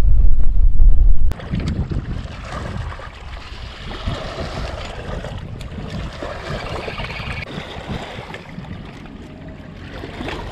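Strong wind buffeting the microphone for about the first second, then an abrupt cut to a quieter mix of wind and small river waves lapping against shoreline rocks, with a few light clicks.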